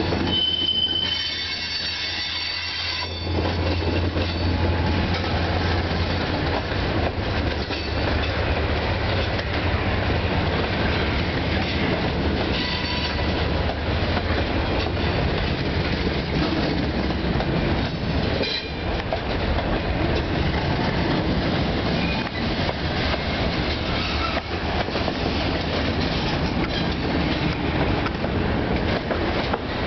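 Freight train cars rolling past: a steady rumble and clatter of steel wheels on the rails, with high-pitched wheel squeal in the first three seconds.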